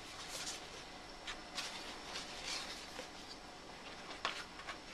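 Pages of a large hardback book being turned by hand: a few faint paper swishes and rustles.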